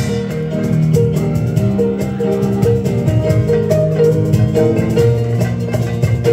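Korean traditional (gugak) ensemble playing: a quick melody of short notes over a sustained low line.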